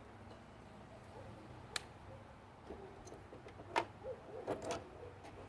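A few sharp metallic clicks and taps as the bit or socket head on a drill is swapped: single clicks about two and four seconds in, then a quick cluster of three.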